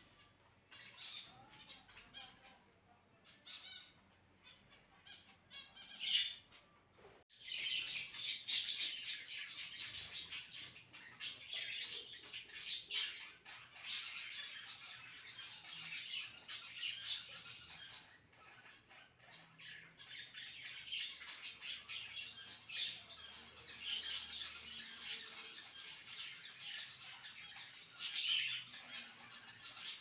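A small flock of budgerigars chattering and warbling. It starts as scattered chirps, then becomes dense, continuous high-pitched chatter from about seven seconds in.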